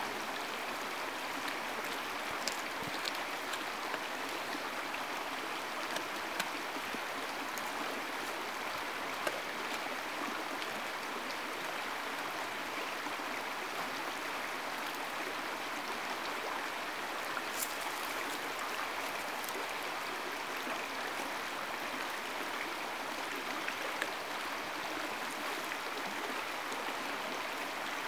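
A creek's water rushing steadily, with a few faint clicks over it.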